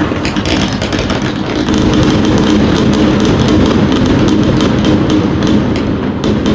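A continuous barrage of New Year's fireworks and firecrackers: many rapid overlapping bangs and crackles with no break, over a steady low rumble.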